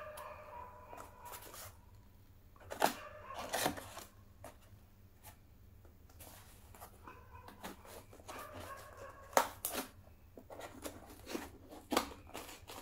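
A sturdy shipping package being opened by hand: rips, crinkles and sharp cracks of the packaging, loudest about three seconds in, around nine seconds and near twelve seconds.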